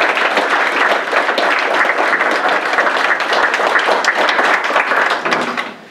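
A roomful of people applauding, the clapping dying away shortly before the end.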